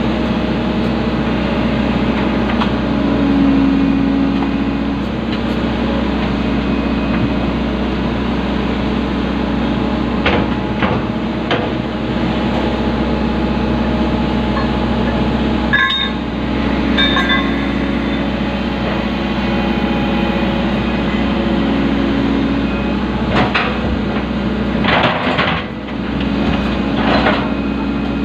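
Excavator's diesel engine running steadily, heard from inside the operator's cab, its tone shifting now and then as the hydraulics work. A few short knocks and clanks come in the second half.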